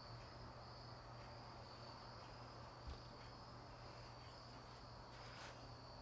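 Faint, steady high trilling of crickets, with a single soft knock about halfway through.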